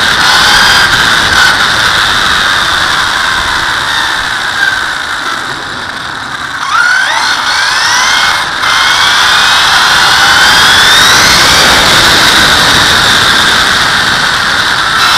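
Castle 1717 brushless motor and drivetrain of a 6S-powered Traxxas Slash 4x4 RC car, whining in pitch with speed, under a loud rush of tyres on asphalt and wind on the on-board camera. About halfway it eases off and quietens, then a string of rising whines follows as it accelerates hard again.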